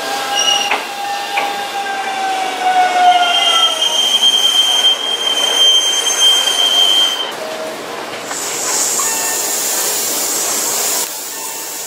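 Hanshin Mukogawa Line electric train moving along a curved platform, its wheels squealing in several high tones that slowly fall in pitch for about seven seconds. A steady high hiss then follows and cuts off suddenly near the end.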